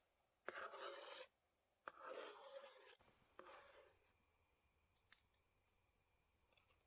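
Faint scrapes of a utensil against a container as chopped tomatoes are spooned onto the dish: three short strokes, then a single faint click about five seconds in.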